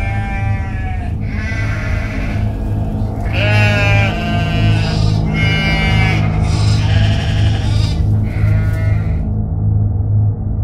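A run of bleats, about one a second, each a wavering call, laid over background music with a steady low beat. The bleats stop about a second before the music carries on alone.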